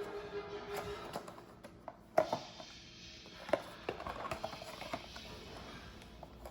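Soft background music with scattered clicks and rustles of a small Funko Mystery Minis cardboard box being handled and opened; a sharp click about two seconds in is the loudest, with another about a second later.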